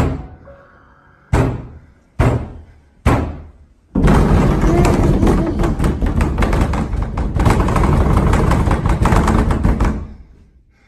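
Four loud, heavy bangs inside a house, like blows on a wall or door, about a second apart, each ringing on briefly in the room. Then several seconds of loud, rough rumbling and crackling noise that fades out near the end.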